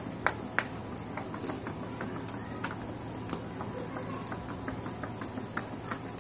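A sheet of paper flapping as it is waved to fan a charcoal grill: sharp slaps about three a second in the first second, then fainter, uneven ticks.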